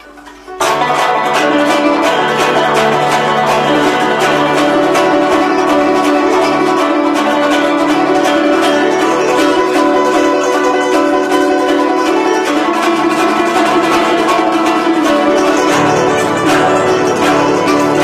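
Guzheng played fast and loud in dense runs of rapidly plucked notes, coming in suddenly about half a second in.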